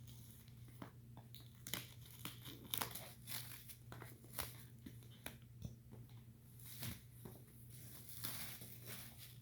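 Packaging of a smart-lock box being opened and handled: a run of irregular crinkling and tearing noises with small clicks and knocks.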